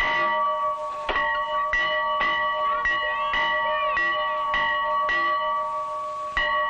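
Farm bell rung over and over, a little under two strikes a second, each stroke ringing on into the next: the signal calling the farmer in from the field.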